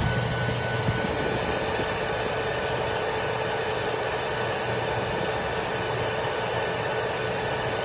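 Vacuum cleaner motor running steadily, a constant whooshing with a steady whine, as its exhaust is tested for particles.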